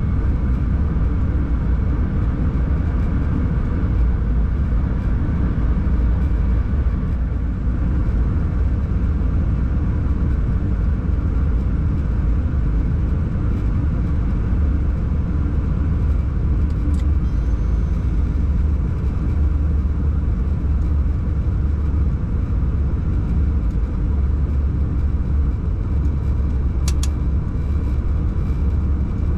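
A locomotive running along the line, heard from the driver's cab: a steady low rumble with an even hum. There is a brief click with a short high tone a little past halfway, and a sharp click near the end.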